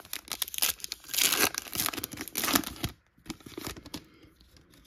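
Topps Chrome baseball card pack wrapper being torn open and crinkled by hand: a dense crackling tear for about three seconds, dying away to a few faint rustles.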